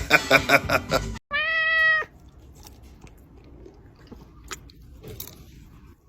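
A cat meowing once: a single clear cry of about two-thirds of a second, steady in pitch, about a second in. Before it, music with a quick beat cuts off, and after it there is only low room noise with a couple of faint clicks.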